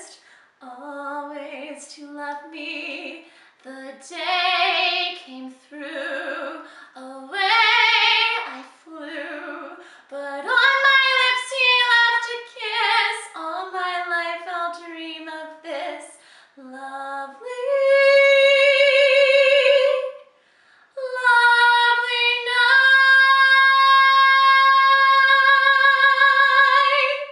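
A woman singing solo and unaccompanied in a high, clear voice with vibrato, in short phrases that end in two long held high notes, the last held for about six seconds.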